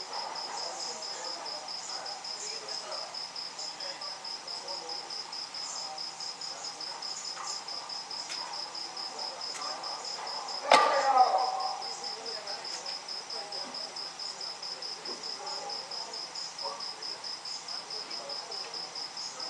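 Crickets trilling steadily, a continuous high pulsing chirr. A single sudden loud sound breaks in a little past halfway.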